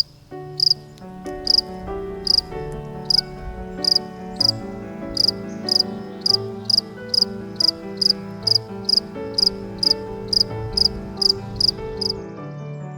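Cricket-like insect chirping: short, high chirps repeating evenly about twice a second, over background music of held notes.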